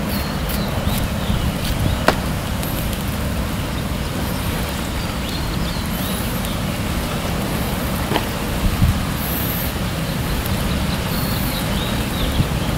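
Wind rumbling on the microphone, with a few sharp clicks and faint high chirps above it.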